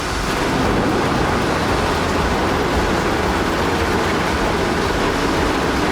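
Heavy vehicles running: a loud, steady rush of noise with a low rumble underneath, which starts abruptly.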